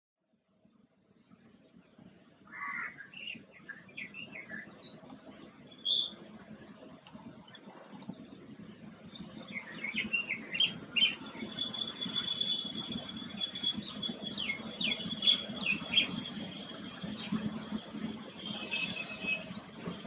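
Garden birds chirping: many short, high chirps and whistles, with a few sharp louder calls and a thin steady high note for several seconds in the middle. A low, even hum runs beneath.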